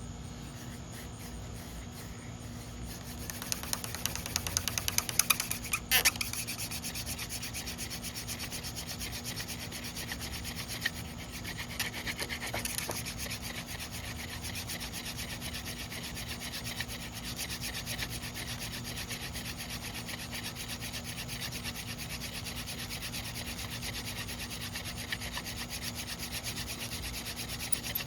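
Hand drill friction fire: a mullein spindle spun back and forth between the palms, with thumb loops, grinding into a pine fireboard. It makes a steady, fast rasping rub of wood on wood that starts about three seconds in and keeps going.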